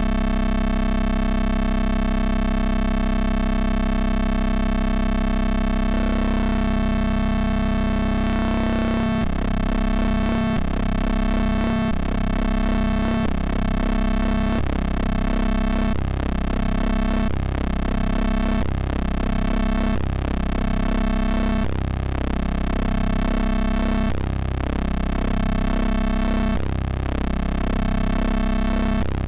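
Eurorack modular synthesizer drone from a Rossum Trident oscillator patch of square and pulse waves: a steady, buzzy low tone rich in overtones. About six seconds in the tone changes, and from about nine seconds its timbre shifts in a repeating cycle roughly every second and a half as the pulse width is modulated.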